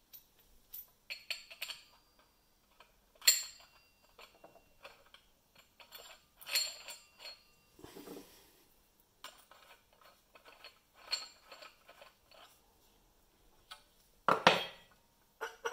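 Steel parts clinking and knocking together as a round plate and axle are fitted by hand onto a short section of steel pipe: scattered metallic clinks and scrapes, some ringing briefly. The loudest knocks come about three seconds in and near the end.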